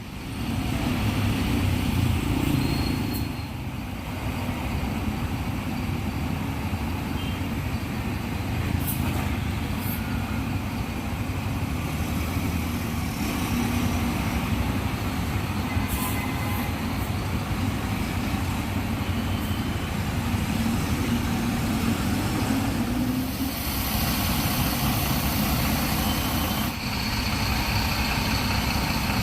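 Heavy diesel engines of Mercedes-Benz 1626 tour buses running steadily as they pass, with a few short air hisses from the brakes or air suspension.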